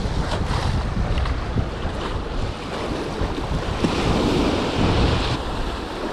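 Wind buffeting the microphone, a steady low rumble, with a brief stretch of higher hiss about four seconds in.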